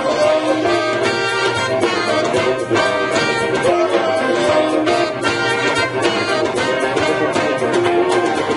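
A live band playing an instrumental passage of a song, with brass horns carrying the melody over the rhythm section.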